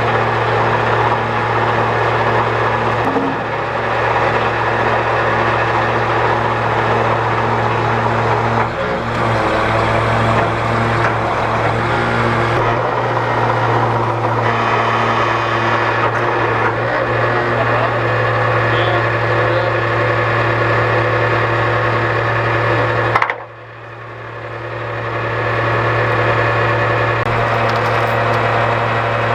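Heavy machinery engine running steadily under load. The sound drops out abruptly about three-quarters of the way through and builds back up over a couple of seconds.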